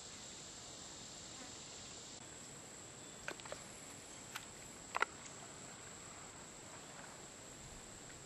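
Insects droning in a steady, high-pitched chorus, with a few sharp clicks in the middle.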